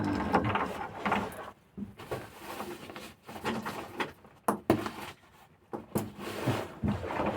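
Gear being handled and rummaged through: irregular rustling with scattered knocks and clicks.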